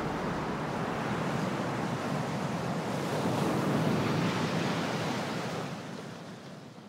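A steady rushing noise like surf, swelling about halfway through and then fading out at the end.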